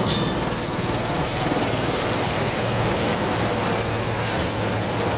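Two helicopters flying low overhead, their rotors and engines making a steady noise.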